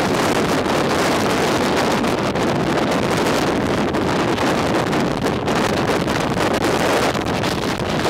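Santa Ana wind of around 60 mph blowing into an SLR camera's built-in microphone: loud, steady wind noise with no break.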